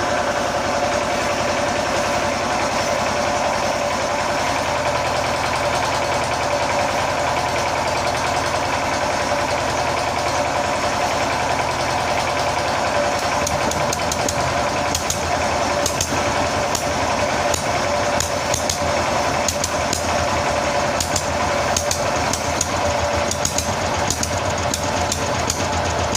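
R100 diesel engine running steadily, with sharper regular clicking joining in about halfway through.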